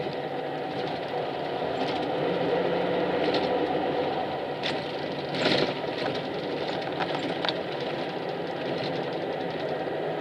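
Inside a highway bus on the move: the engine running steadily with road noise and light rattles, and one brief louder knock about five and a half seconds in.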